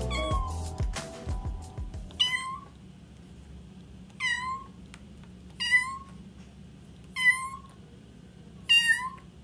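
Young feral kitten meowing five times, about every second and a half, each call short and dropping in pitch at its end: a lone kitten calling for its mother and littermates. Background music fades out in the first two seconds.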